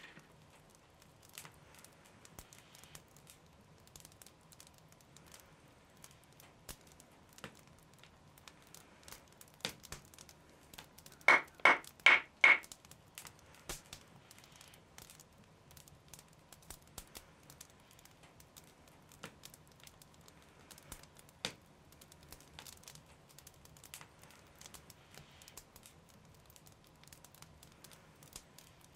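Quiet handling of wooden bow parts: scattered small clicks and rustles, with four sharp knocks in quick succession about eleven seconds in.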